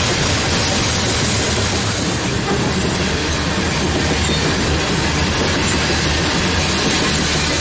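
Freight cars of a BNSF coal train rolling steadily past on the rails: the even, continuous noise of steel wheels on track from a long string of coal hopper cars.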